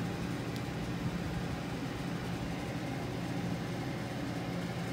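Steady low mechanical hum of running equipment, with one faint tap about half a second in.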